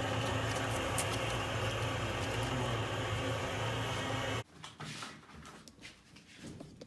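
A steady motor hum with a low tone stops abruptly about four and a half seconds in. Quiet clicks and handling noises follow.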